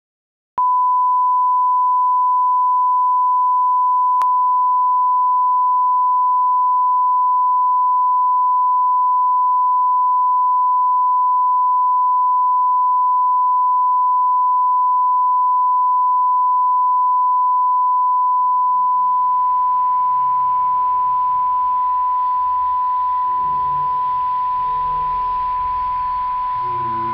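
Steady 1 kHz reference test tone of the kind played with television colour bars, one unchanging pitch starting abruptly just after the start. From about eighteen seconds in it slowly fades while a muddle of other, lower sounds rises underneath it.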